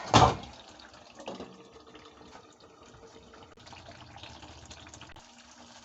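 A pan of espagnole sauce simmering as it reduces, with faint, soft bubbling. A brief loud knock comes right at the start.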